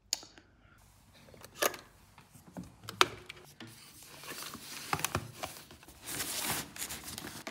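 Packing a hair dryer and its cord into a fabric backpack: rustling of the bag with a few sharp clicks and knocks of hard plastic, and a longer rustle about six seconds in.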